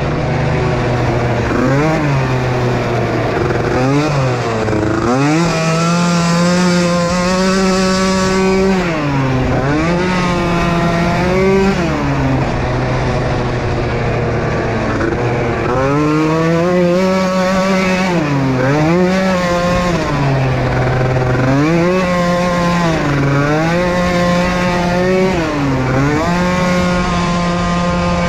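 Small racing ATV engine at full race pace, its pitch repeatedly rising and dropping every second or two as the throttle is worked, at times held high for a few seconds.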